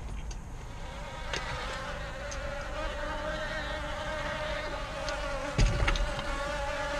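A steady, even-pitched buzzing hum starts about a second in, with a single low thump a little past the middle.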